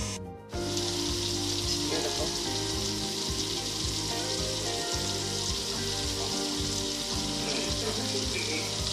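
Background music with sustained chords that change every second or two, over a steady high hiss like food sizzling.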